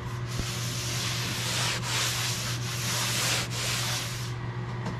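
A cloth rag rubbed in long strokes along the edge of a boat hull, wiping the surface down before gluing: a hiss in about four strokes that stops near the end. A steady low hum runs underneath.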